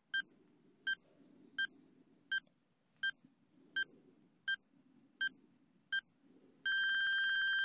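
Electronic countdown timer beeping: nine short, identical beeps about three-quarters of a second apart, then one long beep of about a second as the countdown runs out.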